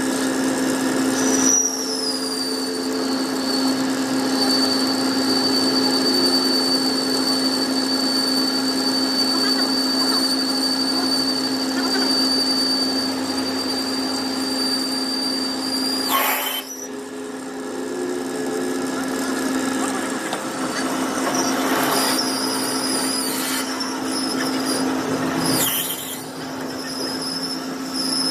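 A workshop machine running steadily, with a high whine that begins about a second and a half in and holds. The whine breaks off about halfway with a brief loud noise, then comes back wavering and squealing in the last third.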